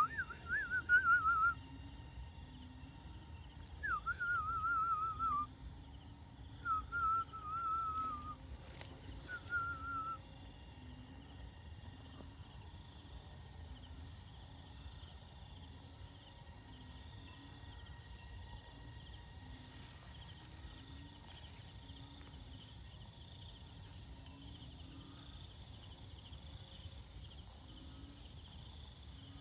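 Insect chorus, a steady high trill made of fast pulses. In the first ten seconds it is joined by four short wavering calls, each falling in pitch.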